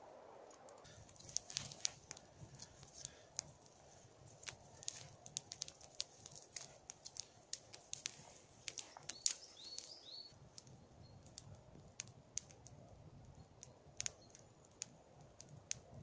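Small fire of fern tinder and dry twigs catching and crackling, with irregular sharp snaps and pops as twigs burn and are laid on.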